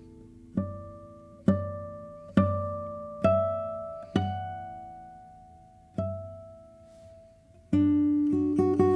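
Solo acoustic guitar music: six slow plucked notes, each left to ring and fade, then a quicker run of notes near the end.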